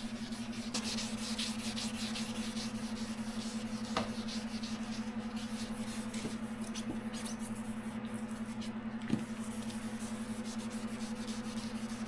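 Sandpaper rubbing on a plastic car headlight lens in repeated scratchy strokes, taking the yellowed, cloudy surface off, with a steady low hum beneath.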